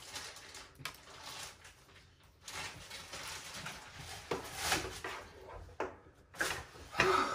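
Rustling and scattered light knocks and clicks of things being handled at a desk, as cables and the monitor are set up, with a cluster of sharper knocks about four and a half seconds in.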